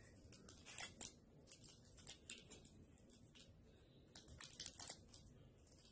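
Faint crinkling and light clicks of a small plastic jewelry baggie being handled and opened, coming in a few short scattered clusters.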